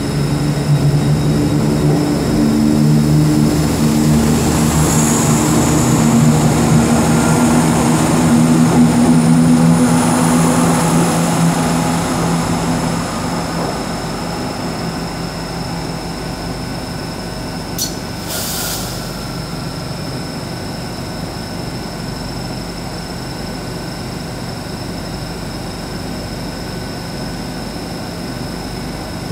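A Class 170 Turbostar diesel multiple unit pulling away under power, its diesel engines loud for the first dozen seconds and then fading to a lower steady rumble as the train moves off. A short hiss sounds about eighteen seconds in.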